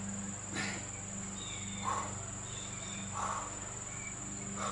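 Insects droning steadily at a high pitch, with a low hum beneath and a few faint short sounds in the middle.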